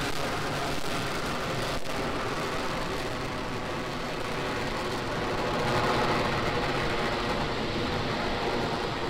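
Steady roar of a SpaceX Falcon 9 first stage's nine Merlin engines during ascent just after liftoff, getting a little louder about six seconds in.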